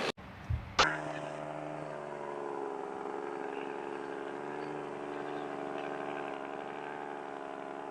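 A truck engine running at a steady speed, with a sharp click a little under a second in.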